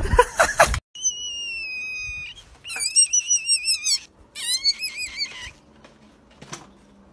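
For under a second a voice over music plays, then cuts off suddenly. A very young kitten then mews three times in high, thin cries: one long and steady, falling slightly, then two that waver up and down.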